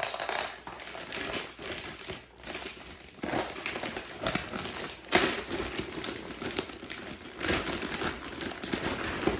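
Rustling and crinkling of packaging with scattered clicks and knocks, as the contents of a router's box are handled and searched through.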